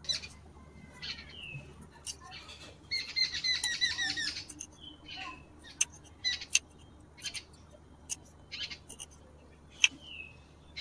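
Small knife chopping a green chilli on a little wooden board: scattered sharp taps of the blade on the wood, most of them in the second half. A bird calls in a rapid series about three seconds in, with a few short chirps elsewhere.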